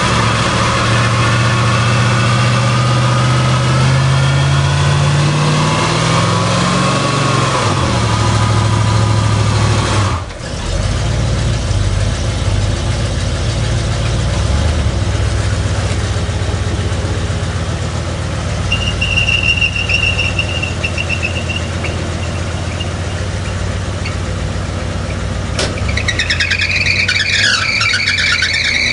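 Cadillac HT4100 4.1-litre V8 of a 1984 Fleetwood limousine revving hard in a burnout, the tires spinning and squealing on pavement. The engine note climbs over the first several seconds, then drops, and a loud tire squeal comes near the end.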